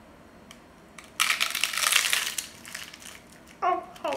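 A bite into a corn-tortilla taco: a loud crunch comes in sharply about a second in and fades over the next two seconds. A short vocal sound follows near the end.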